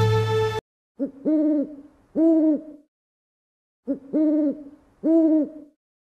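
An owl hooting: two matching groups of calls about three seconds apart, each a short lead note and then two hoots that rise and fall in pitch. A bit of music fades out just before the first call.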